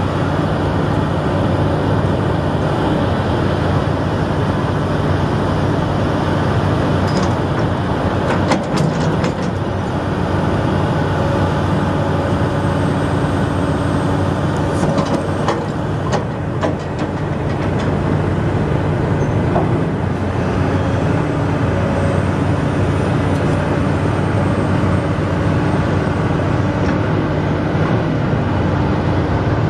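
Diesel engine of a 2004 Link-Belt 330 LX excavator running steadily while the boom, arm and bucket are worked hydraulically, with a few sharp metallic clanks around nine and sixteen seconds in.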